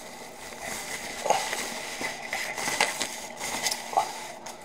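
Packaging rustling and crackling as a flat-screen TV is lifted out of its box, with a few louder crackles.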